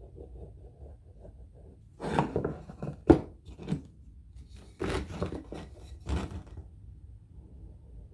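Hand work on the workbench: a few brief clusters of knocks and scrapes, with one sharp knock about three seconds in, as wooden pieces and a glue bottle are handled.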